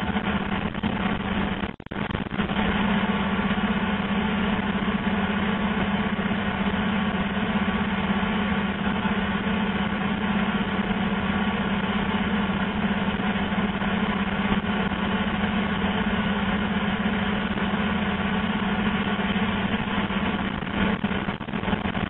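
Fibre-optic cable blowing machine running steadily as it blows cable into a sub-duct: a continuous mechanical hum with a strong low drone, dipping briefly about two seconds in.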